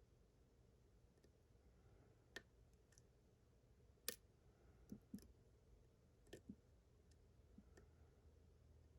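Faint, scattered clicks of a hook pick and tension wrench working the pins of a Picksmith Ling Soo pin-tumbler challenge lock, about nine light ticks with a sharper click about four seconds in.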